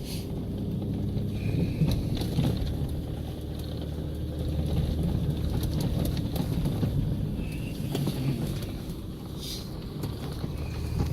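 Vehicle engine running and road noise while driving slowly on a snowy road, heard from inside the cab, with a steady low hum and occasional small knocks and rattles.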